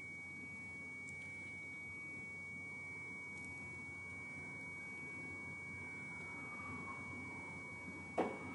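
A faint, steady high-pitched tone over low background hiss, with a few faint sliding tones in the second half and a short knock near the end.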